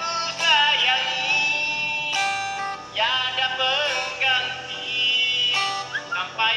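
A person singing a melody with wavering, held notes, accompanied by guitar.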